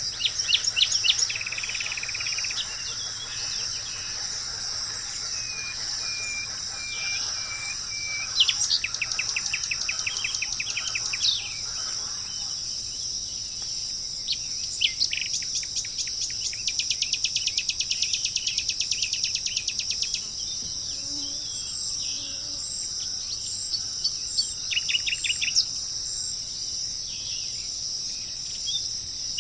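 Songbirds singing in fast trills and short repeated notes over a steady, high-pitched chorus of insects. The longest trills come about a third of the way in and again past the middle.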